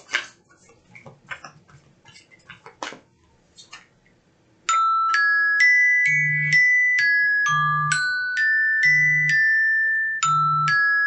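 Oracle cards being shuffled and handled, faint clicks and rustles, until just under five seconds in a phone rings: a marimba-style ringtone of quick bright mallet notes, looping, with a low buzz pulsing about every second and a half.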